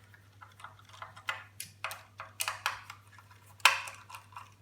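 Irregular light clicks and taps of a hand screwdriver working small Phillips screws out of a Wi-Fi box's case, with a louder clack near the end.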